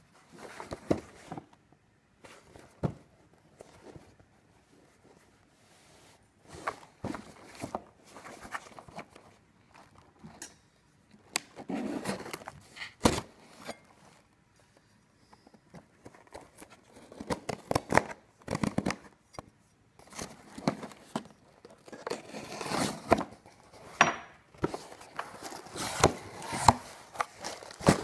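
A cardboard shipping box being handled and opened by hand: irregular scrapes, a few sharp knocks, and the tearing of packing tape and cardboard flaps, with crinkling of the packed contents as it opens.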